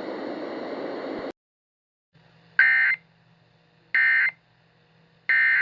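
Emergency Alert System end-of-message signal: three short buzzy digital data bursts, each about a third of a second long and about 1.3 seconds apart. Before them, a steady hiss cuts off suddenly about a second in.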